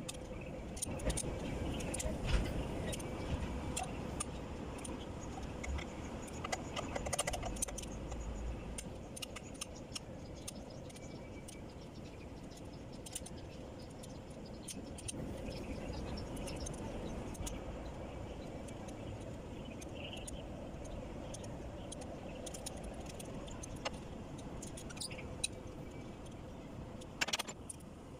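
Metal hand tools clinking and rattling as a T-handle socket wrench and socket are turned on, and moved between, cylinder head bolts being loosened for head removal, with scattered sharp clicks throughout. A low rumble runs under the first several seconds.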